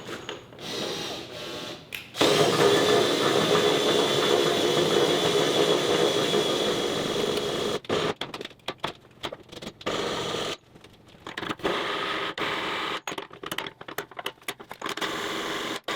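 A power drill driving the shaft of a trailer landing-gear lifting mechanism on a test run, a steady motor whine with gears turning. It runs continuously from about two seconds in for some five seconds, then in short stop-start bursts.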